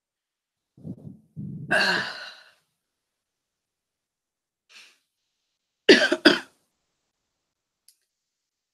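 A person coughing: a rough cough about a second in, then a quick run of three sharp coughs about six seconds in.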